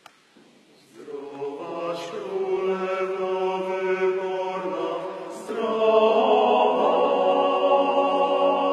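Male vocal ensemble of about nine voices singing a cappella in long held chords. It starts about a second in and grows clearly louder about five and a half seconds in.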